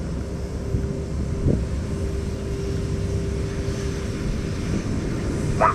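Low, steady rumble of an Airbus A320-family airliner's jet engines on short final approach, mixed with wind buffeting the microphone.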